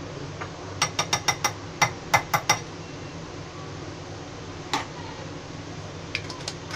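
A steel spoon clinking against a ceramic bowl: a quick run of about eight clinks about a second in, then a single clink a few seconds later.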